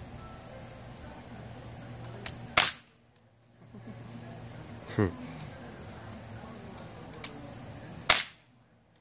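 Two sharp BB gun shots, about five and a half seconds apart, with a fainter click between them. Insects keep up a steady high drone underneath.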